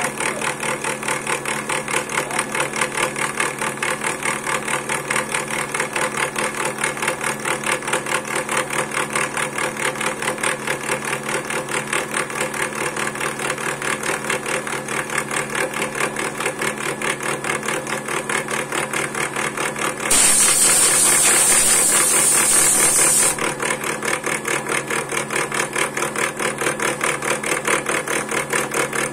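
Homemade four-axis CNC machine milling a spinning wooden blank with a 6 mm two-flute flat-end mill: a steady motor whine that pulses fast and evenly. About twenty seconds in, a louder hiss comes in for about three seconds, then stops suddenly.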